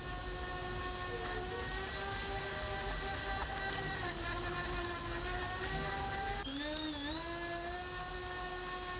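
High-pitched whine of a 64 mm electric ducted fan driving an RC airboat, held at a fairly steady pitch with brief dips as the throttle eases. The sound breaks and picks up again abruptly about six and a half seconds in.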